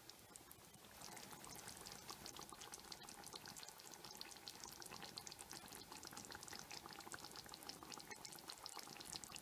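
Faint, dense popping and crackling of fish in tomato sauce simmering in a pan, growing busier about a second in.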